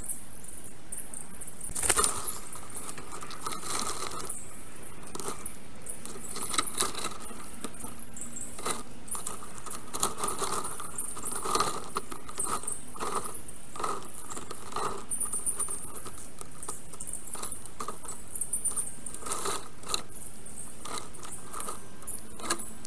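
Fast-forwarded black stork nest-camera audio: a busy jumble of short clicks and rattles, with a high chittering over them throughout, as the stork works the sticks of its nest.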